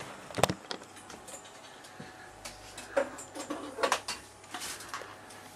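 Camera handling noise as the camera is picked up and carried: a loud knock about half a second in, then scattered clicks and rustles, with another cluster of knocks around three to four seconds in.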